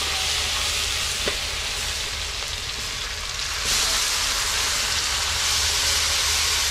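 Chopped tomato, onion, pimento and garlic sizzling in hot frying oil in a pot: a steady frying hiss that grows louder about four seconds in, with one light tap about a second in. The oil is hotter than it should be.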